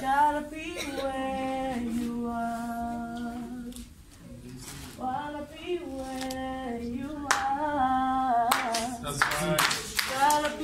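A single voice singing a worship song unaccompanied, holding long sustained notes, with a few sharp hand claps near the end.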